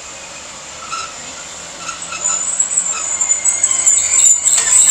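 Class 156 Sprinter diesel multiple unit pulling away and running close past, its diesel engine running low under a high, steady squeal from the wheels that grows loud from about two seconds in.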